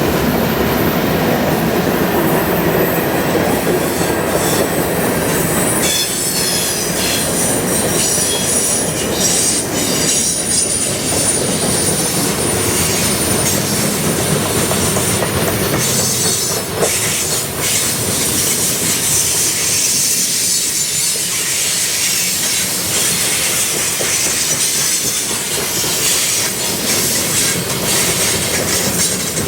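Long CN freight train's cars rolling steadily past, wheels clacking over rail joints, with high-pitched wheel squeal that is strongest about a quarter of the way in.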